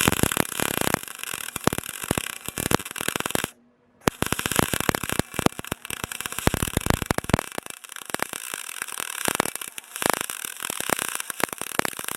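Electric welding arc on aluminum, a dense steady crackle, laying a straight bead on a van roof cross member. It stops for about half a second a little over three seconds in, then strikes again.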